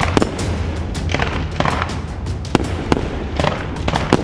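Aerial fireworks bursting: several sharp bangs at uneven intervals, some followed by a crackling fizz, over background music with a steady low bass.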